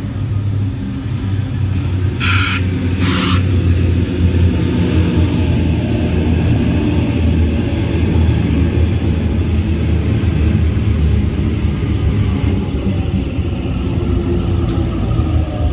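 Double-deck electric passenger train approaching and passing close by. Two short horn toots come about two seconds in, then a loud, steady low rumble of the carriages running over the rails as it goes past.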